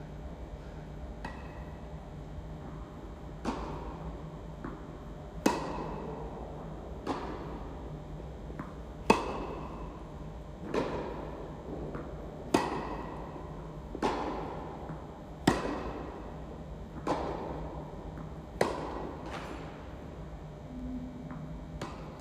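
Tennis ball rally: racquet strikes and ball bounces at a steady pace, about one shot every one and a half seconds, each pop echoing around the indoor tennis hall.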